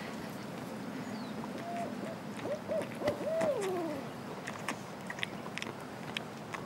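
Barred owl calling: a quick series of hoots, starting about a second and a half in, that ends in a long downward slur. Faint scattered clicks run through the background.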